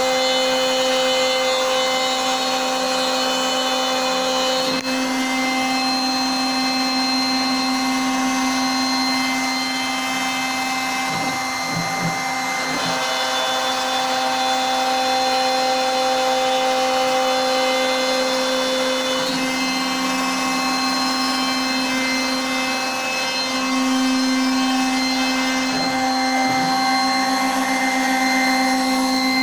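CNC router cutting MDF: the spindle runs steadily with a whine of several stacked tones, and the tones shift several times as the machine works.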